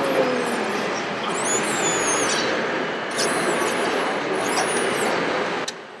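Radio-controlled Hanomag wheel loader model driving into soil, its drive motors and gears whirring steadily with a high whine that rises and falls a few times. The whirring cuts off sharply near the end.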